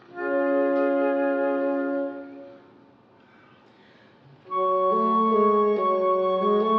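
Woodwind trio of flute, oboe and bassoon playing classical chamber music. A held chord fades away after about two seconds, there is a brief near-silent pause, and the trio comes back in about four and a half seconds in with shifting notes over a low held tone.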